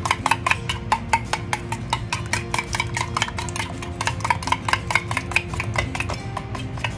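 Metal spoon beating eggs in a small stainless steel bowl: a fast, even clicking of the spoon against the bowl's side, about eight strokes a second.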